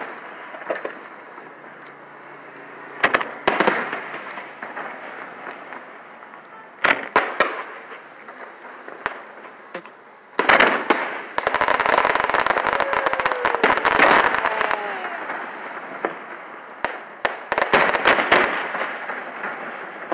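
Aerial fireworks shells bursting with sharp booms at irregular intervals. About halfway through comes a long stretch of dense crackling with a few falling whistles, then a cluster of bursts near the end.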